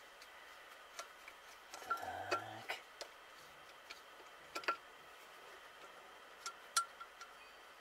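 Screwdriver working the screws of a disassembled GAZ-66 carburetor: faint, irregular metallic clicks and ticks, with a few sharper clicks about two, four and a half, and seven seconds in.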